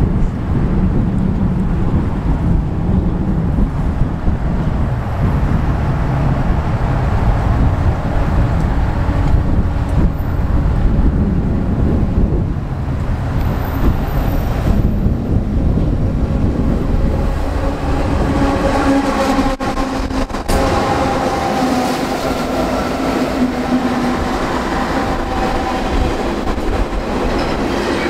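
Diesel-hauled double-stack intermodal freight train approaching and passing: a heavy low rumble, then steady engine tones as the locomotives go by about two-thirds of the way through, and wheel clatter from the container cars near the end.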